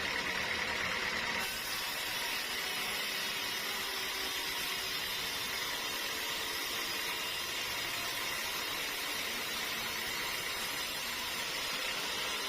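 Sawmill machinery running with a steady mechanical hiss, no separate strokes or impacts. The sound shifts slightly about a second and a half in.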